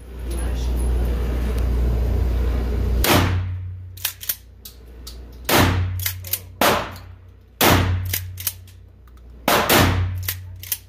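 Pump-action shotgun fired five times in an indoor range, a shot every one to two seconds, each echoing off the walls, with smaller sharp clicks between the shots. The first three seconds hold a loud low rumble before the first shot.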